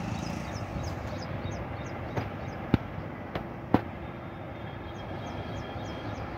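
Steady outdoor background noise, with a faint high chirping repeated about three times a second. Four sharp clicks come between about two and four seconds in, two of them loud.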